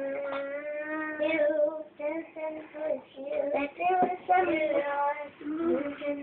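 A child singing a slow tune alone, with no accompaniment, some notes held for a second or more and short breaks between phrases.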